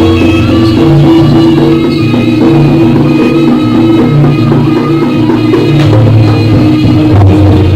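Loud live jaranan ensemble music, instrumental, with drums and sustained pitched instruments over a heavy bass line.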